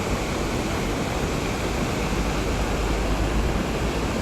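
Steady rushing of a small creek waterfall, with a low rumble that swells in the middle.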